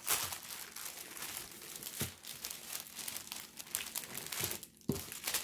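Clear plastic packaging bag crinkling as it is handled and pulled open, with a few sharper crackles and a short lull near the end.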